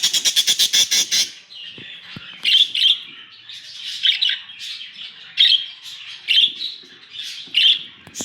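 Black-face Japanese Hagoromo budgerigars calling: a fast run of sharp chirps, about eight a second, for the first second or so, then soft warbling chatter broken by loud squawks about every second or so.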